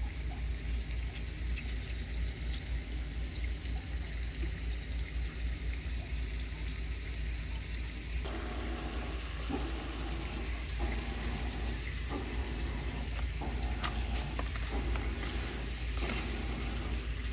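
Split andouille sausages cooking in water in a skillet on a gas burner: a steady sizzling bubble while the added water is still cooking off, before the sausages brown.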